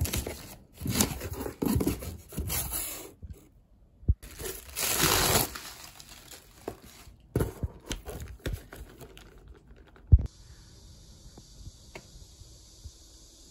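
A cardboard box being torn open by hand, with tearing cardboard and the crinkling plastic bags of tofu cat litter inside being handled, broken by a few knocks. There is one sharp knock about ten seconds in, then only a faint steady hiss.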